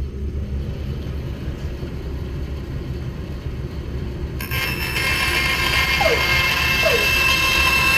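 Band saw running with its blade spinning free, not yet cutting: a steady low hum. About four and a half seconds in, a steady higher whine and hiss comes in and the sound grows louder, with a few brief falling squeaks after it.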